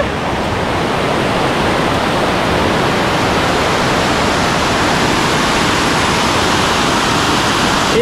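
Waterfall cascading down sloping rock ledges: a steady rush of white water.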